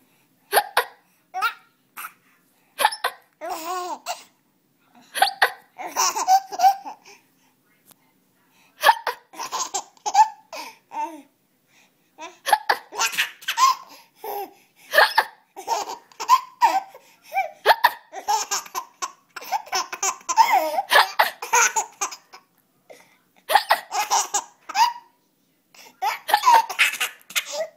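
A young child laughing in repeated fits, with short sharp hiccups breaking in between the laughs.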